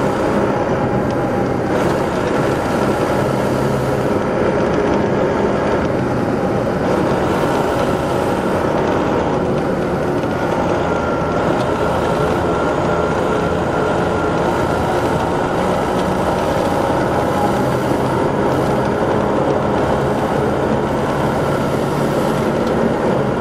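Detroit Diesel Series 60 inline-six diesel engine of an MCI D4500 coach running steadily, with a higher whine above the engine drone that grows clearer about halfway through.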